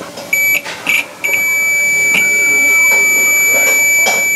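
Digital multimeter's continuity beeper sounding as the probes touch a dryer thermostat's terminals: two short beeps, then a steady high beep held for about three seconds. The unbroken beep shows continuity: the thermostat is good.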